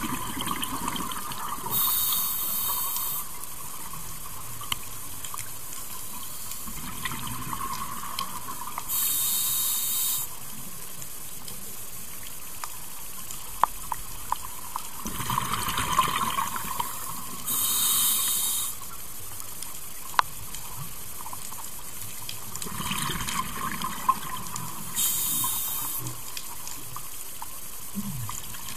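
Scuba regulator breathing heard underwater: four hissing inhalations, each about a second long and roughly seven to eight seconds apart, alternating with bursts of exhaled bubbles. A few sharp clicks stand out now and then.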